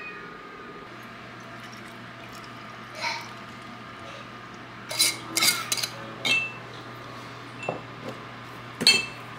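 Glass mason jars clinking and knocking against one another and the wooden board as they are handled and filled. There is a scattered run of sharp clinks about five to six seconds in and a loud one near the end, over a faint steady hum.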